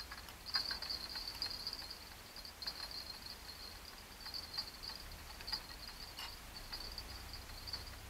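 Spinning reel being cranked: a faint, high whirring from the reel in uneven spells, with small clicks.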